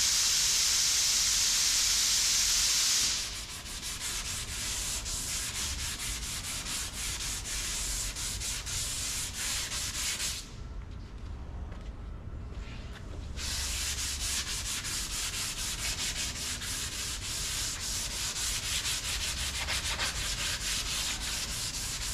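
Sanding of Bondo body filler on a car body panel: scratchy, irregular sanding strokes with a pause of about three seconds in the middle. It opens with a louder, steady hiss that stops about three seconds in.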